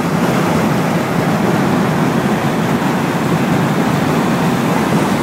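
Steady rush of wind and road noise, heard through a phone microphone held out the window of a moving vehicle.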